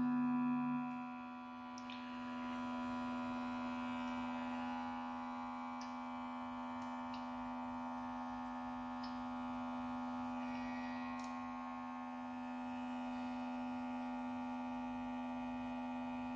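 Background music: a sustained synthesizer drone of held, unchanging tones, with a few faint clicks.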